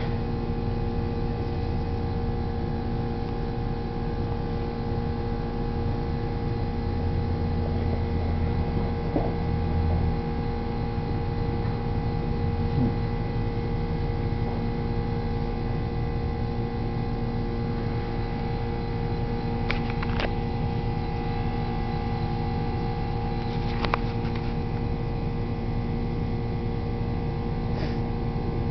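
A steady machine hum with several constant tones over a low rumble, broken by a few short clicks in the second half.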